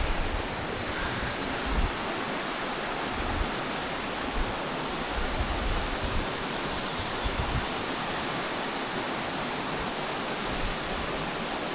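Valley stream water rushing, a steady even wash, with a few brief low rumbles on the microphone.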